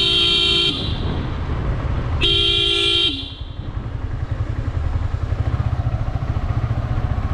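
Two steady single-pitch vehicle horn blasts in traffic, the first cutting off under a second in and the second lasting about a second near the three-second mark. Under them is the continuous low rumble of a moving motorcycle and wind.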